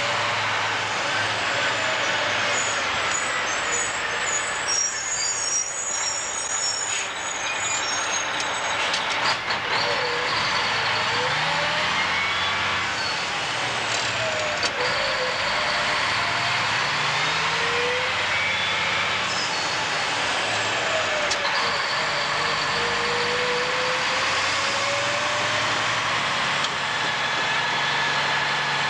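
Mack dump truck's diesel engine running under way with road and drivetrain noise, its pitch rising and falling several times as the revs change.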